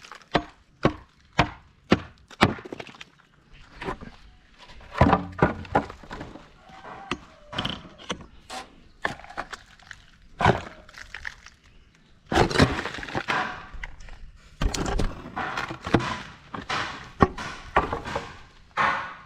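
Wooden formwork boards being knocked loose from a concrete lintel: a run of sharp knocks on timber, about two a second at first. Then come irregular knocks and longer spells of boards scraping and clattering.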